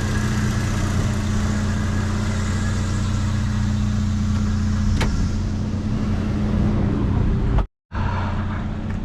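A vehicle engine running steadily, with one sharp click about five seconds in. The sound cuts out for a moment near the end.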